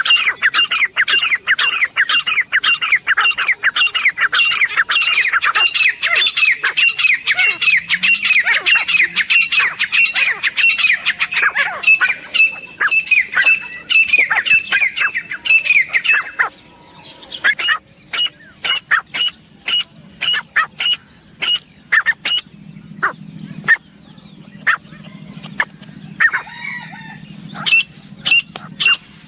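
Grey francolin (teetar) calling: a fast run of repeated ringing notes, about three a second, that thins out after about sixteen seconds into sparser, sharp single calls.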